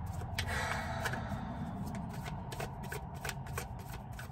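Tarot deck being shuffled by hand: a string of short clicks and soft slides of card against card.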